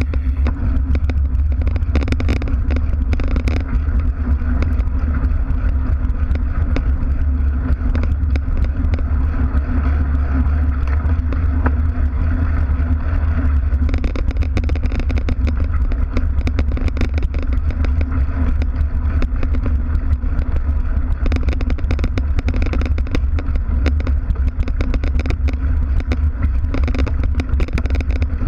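Mountain bike riding over a compacted gravel path and then a sandy dirt track, heard close to the rear wheel: a steady low rumble from the knobby tyre and frame vibration, with constant rattling clicks. About halfway through, on the dirt track, a harsher hiss joins in.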